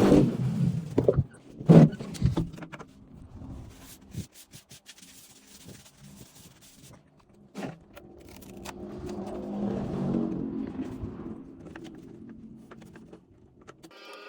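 Unboxing handling noises: sharp knocks and clicks of plastic parts and packaging being handled, the loudest knock about two seconds in, followed later by a rustle.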